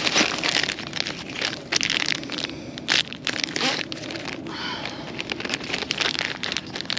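A plastic bag and clear plastic hardware packets rustling and crinkling in irregular bursts as gloved hands sort through packs of concrete anchors.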